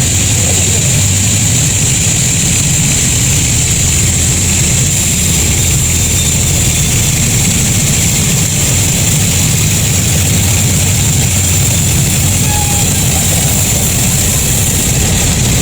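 Sawmill machinery running steadily: a low hum with a constant high-pitched whine over it.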